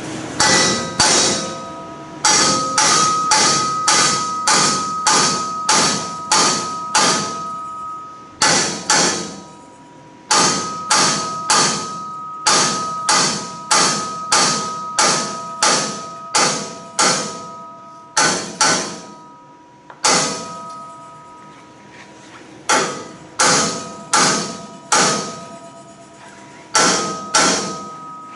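A hammer striking the race car's steel tube bumper, in runs of about two blows a second with short pauses, each blow leaving a metallic ring. The bumper piece is being driven into place so it can be bolted back on.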